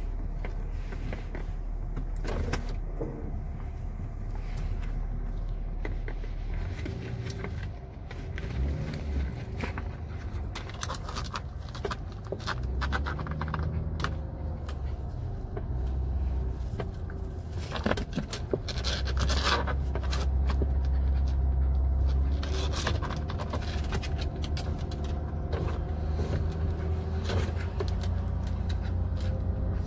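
Engine and road noise inside a moving SUV's cabin, a steady low rumble with light clicks and jingles, growing louder a little past halfway.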